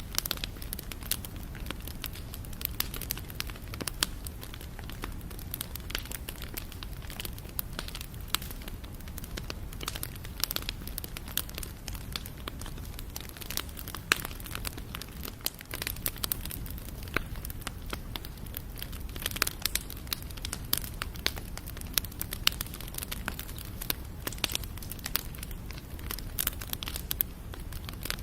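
Wood fire burning: steady low rumble of the flames with frequent sharp, irregular crackles and pops of burning wood.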